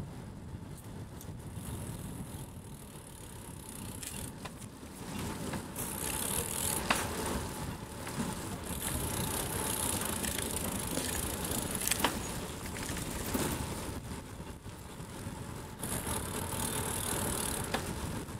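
Riding noise from a crossbike on city roads: tyre and road rumble with wind on the microphone, the bike rattling, and a couple of sharp clicks over bumps.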